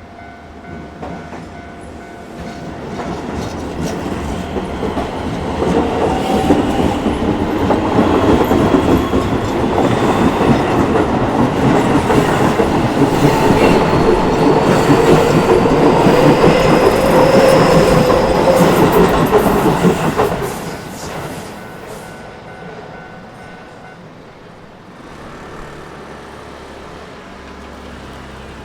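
Keio Line electric train passing over a level crossing, with rumble and wheel clatter. It builds over several seconds, stays loud for about twelve seconds, then falls away quickly a little after twenty seconds in.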